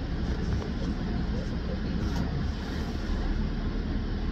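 Steady low rumble of a city bus, heard from inside the passenger cabin.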